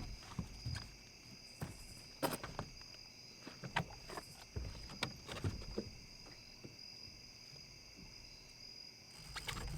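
Steady high-pitched chorus of night insects, with scattered sharp clicks and knocks close by.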